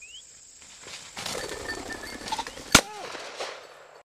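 A single shotgun shot about two and three-quarters seconds in, fired at a flushed pheasant. It is the loudest sound, inside a rustling noise that builds from about a second in. The sound cuts off abruptly just before the end.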